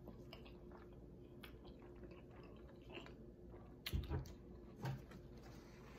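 Close-up chewing of a mouthful of soft street taco, with small wet mouth clicks throughout. Two louder low thumps come about four and five seconds in.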